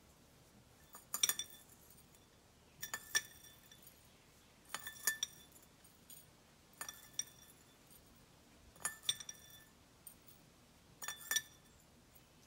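Metal spoon clinking against a glass bowl as it scoops dried peas, in six short bursts of clinks about two seconds apart.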